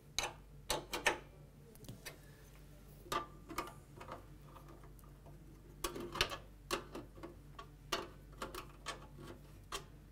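A 9/16 spanner tightening the fixing nuts of a cylinder mower's deflector plate: irregular metallic clicks and taps in small clusters, with pauses between them and denser clicking in the second half.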